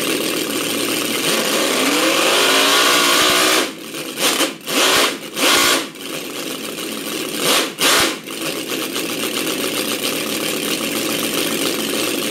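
Quarter-scale supercharged V8 model engine (6.28 cubic inches) revving up toward about 8,000 RPM, its pitch rising over the first three and a half seconds. Then the throttle snaps shut and it is blipped several times in quick sharp revs before it settles back to a steady idle.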